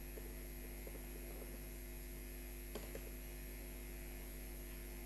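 Steady electrical mains hum, with a couple of faint clicks a little past halfway.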